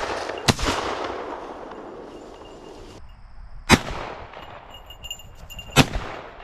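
Three shotgun shots, about three and two seconds apart, each dying away in a short echo.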